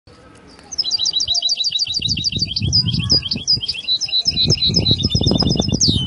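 Canary singing a fast song of rapidly repeated high notes in changing phrases, ending in a quick downward sweep just before the end. From about two seconds in, a low, irregular knocking and rustling runs underneath.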